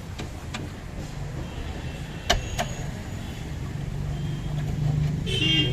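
Sharp metallic clicks and clinks of hand tools on the steering rack and ball-joint fittings, the loudest about two seconds in. Beneath them runs a low engine hum that grows louder toward the end, with a brief high-pitched squeal just before the end.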